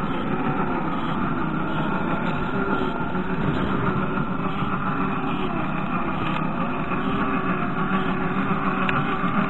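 Small electric motor and gear drivetrain of an RC4WD Gelande II 1:18 scale crawler whining steadily as it crawls over dirt and rock, its pitch wavering slightly with the throttle.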